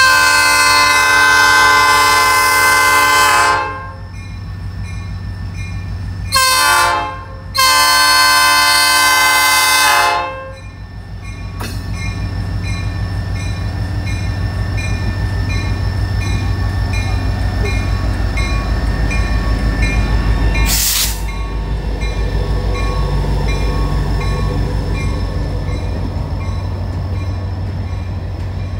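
SD40-2 diesel locomotive's multi-tone air horn sounding for a grade crossing: a long blast, a short one and another long one. Then the locomotive's diesel engine rumbles past, growing louder, with a brief hiss about two-thirds through, followed by the rhythmic clatter of empty hopper cars rolling by.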